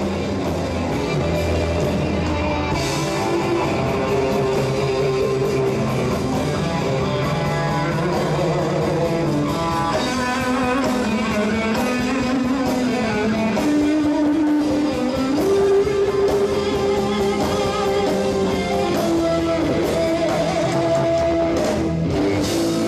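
Live rock band playing, with electric guitars carrying a melodic line that slides between notes over drums and cymbals.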